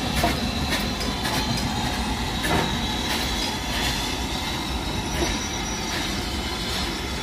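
British Railways Standard Class 4MT 2-6-4 tank steam locomotive at close range: a steady hiss with irregular knocks and clanks.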